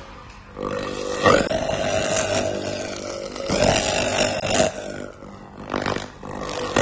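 1000 W laser cleaning machine firing at a square metal tube to strip rust. It gives a rasping buzz over a steady pitched hum, in several bursts that start and stop.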